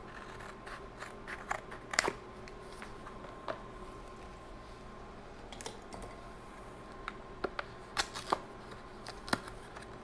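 Scissors snipping open the cardboard box of an NVMe SSD: a few sharp clicks and snips about a second in, and another cluster near the end, over a faint steady hum.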